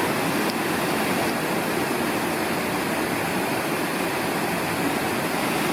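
Steady rushing of falling water, as from a waterfall, even and unbroken.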